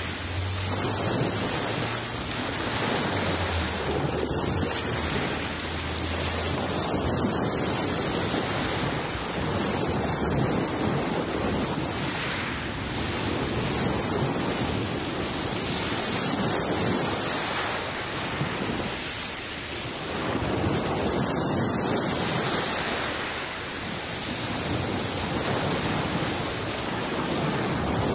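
Sea surf breaking on a pebble shore: waves wash in and draw back, the noise swelling and easing every few seconds.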